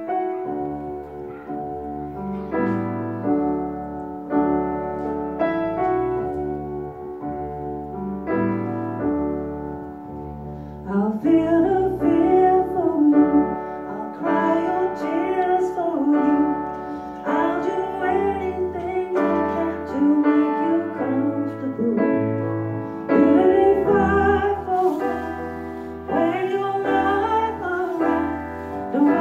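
A grand piano plays chords as an introduction. About eleven seconds in, a woman's solo voice comes in singing over the piano.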